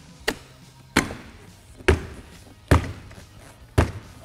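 Hand striking a plastic door trim panel to seat its retaining clips into the door, five sharp knocks about a second apart.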